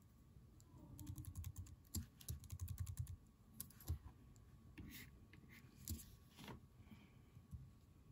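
Faint clicks and key taps of a computer keyboard and mouse. A quick run of taps comes about a second in, then single clicks spaced out after it.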